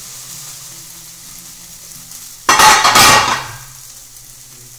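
Food sizzling steadily in a hot frying pan over a low hum. About two and a half seconds in comes a sudden, loud, harsh clatter lasting about a second, the loudest sound here.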